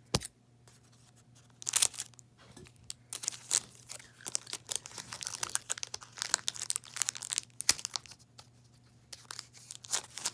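Foil Pokémon card booster pack being torn open and crinkled: irregular crackling rustles, thickest in the middle, with a sharp click right at the start.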